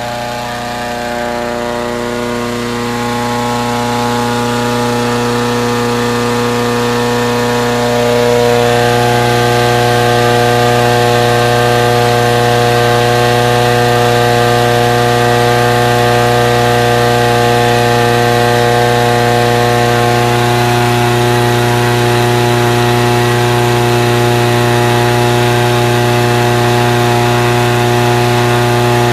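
Petrol-engine inflator fan running close by, blowing cold air into a hot-air balloon envelope during cold inflation. The engine grows louder over the first eight seconds or so, then runs steadily.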